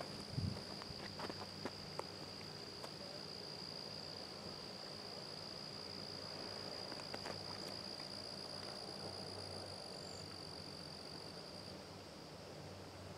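Insects trilling: one steady, unbroken high-pitched drone that weakens near the end. A few light footstep taps on the path in the first few seconds.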